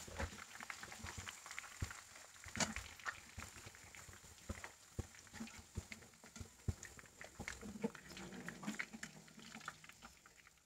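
Fried chicken pieces sizzling faintly in hot oil in a non-stick frying pan, with irregular light clicks and scrapes of a wire spider strainer and wooden spatula against the pan as the fried pieces are lifted out.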